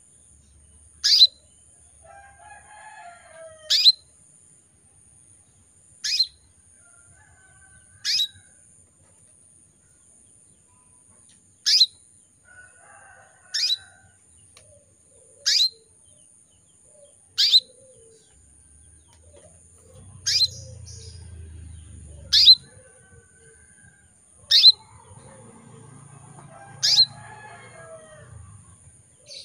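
Female canary giving a short, sharp call that falls in pitch, repeated about every two seconds, twelve times, with fainter, lower chirps between the calls. This is the call a female in breeding condition uses to call a male. A faint steady high whine runs underneath.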